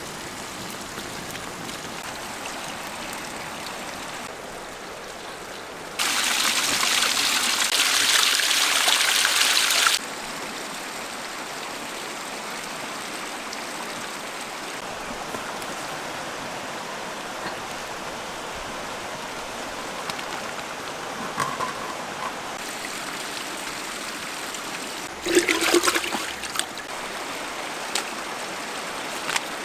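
Water running and trickling steadily. About six seconds in it jumps to a much louder, hissing rush for about four seconds, then drops back abruptly. A short louder burst follows near the end.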